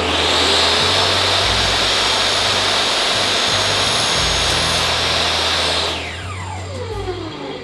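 Table saw fitted with a Freud 250 mm 60-tooth blade cutting through a board, a loud, steady, high-pitched cutting noise that lasts about six seconds. The motor is then switched off and winds down with a falling whine.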